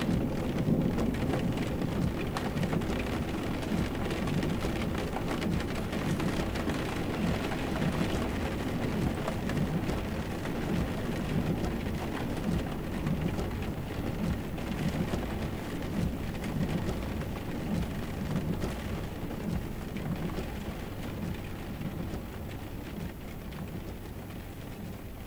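Steady low rumbling noise with an uneven, churning texture, slowly fading over the last few seconds.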